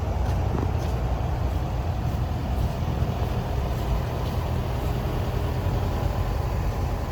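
Komatsu PC45MR-5 mini excavator's diesel engine running steadily, a constant low rumble with no change in speed.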